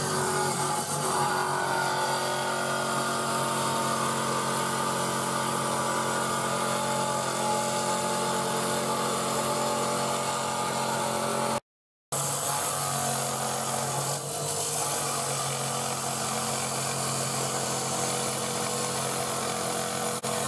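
Homemade water-cooled stone-cutting saw running, its electric motor giving a steady hum with a hiss over it. The sound drops out completely for a moment a little past halfway.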